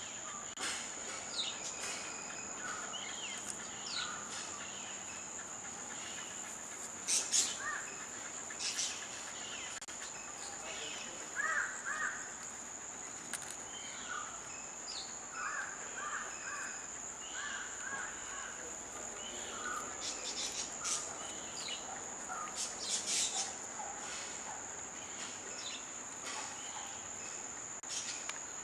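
Birds calling outdoors in short, harsh bursts, loudest about seven seconds in and again about twenty to twenty-three seconds in, over a steady high insect drone.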